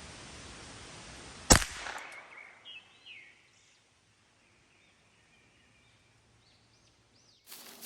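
A single sharp shot from a Ruger 10/22 .22 rimfire rifle about a second and a half in, with a short echo after it. Faint bird chirps follow.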